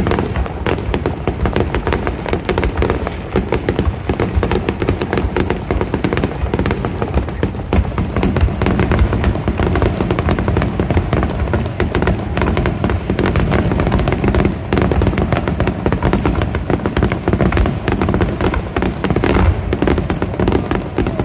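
Aerial fireworks shells bursting in a dense, continuous barrage of rapid, overlapping bangs.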